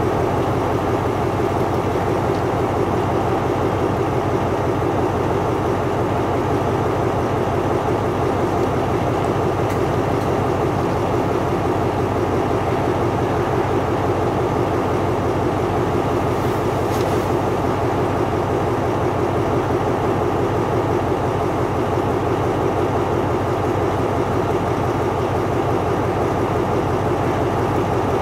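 Diesel-electric locomotive idling steadily at a standstill, its engine running with an even, pulsing note.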